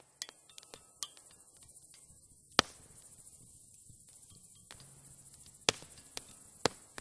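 Irregular sharp knocks and clicks, the loudest about two and a half seconds in, over a faint hiss, with a low hum coming in about two-thirds of the way through.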